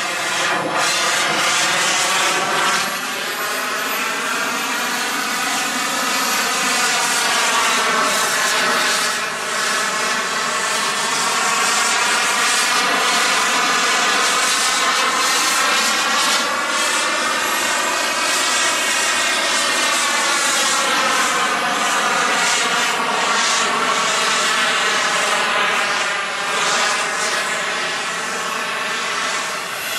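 Model jet turbine (ENJET E160) powering a radio-controlled J-10B jet in flight: a loud, steady jet roar whose tone sweeps slowly up and down as the plane turns and passes, dipping a little a few times.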